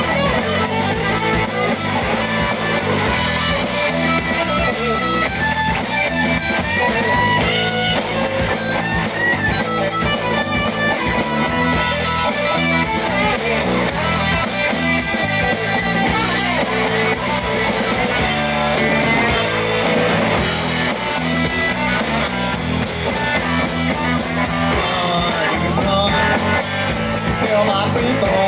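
Live rock band playing an instrumental passage: electric guitars over a Ludwig drum kit, loud and steady.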